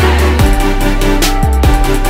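Electronic background music with a heavy beat of deep, falling kick-drum hits.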